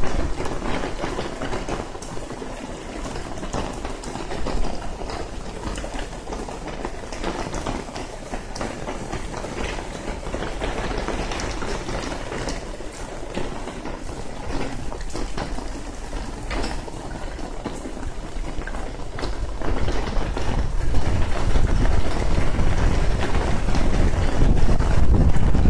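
Heavy rain falling on wet pavement, a steady hiss scattered with small drop ticks. A low rumble grows louder from about twenty seconds in.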